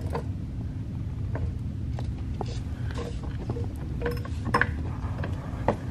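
Hydraulic floor jack being pumped to lift the car at its jacking point: a series of irregular clicks and knocks from the jack over a steady low background hum.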